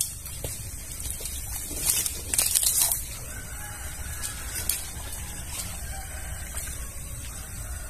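A burst of rustling and splashing about two seconds in, from dry coconut palm fronds and muddy water disturbed by people wading through a ditch. A rooster crows in the background through the second half.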